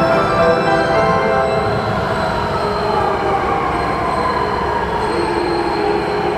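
521 series electric train braking to a stop at a platform. Several high squealing tones from the wheels and brakes come in the first second or so, then a whine that falls in pitch as the train slows, over a steady rumble.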